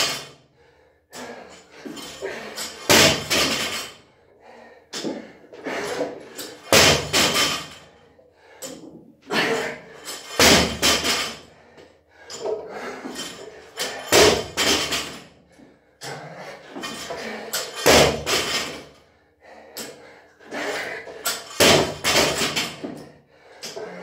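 A 50 kg barbell with rubber bumper plates thudding onto a rubber floor mat after each power clean, six times at about one every four seconds, with quieter knocks and clanks of the bar between the drops.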